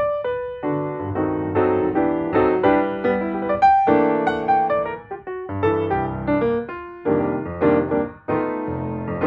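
Background piano music: a melody of separate notes at an even pace.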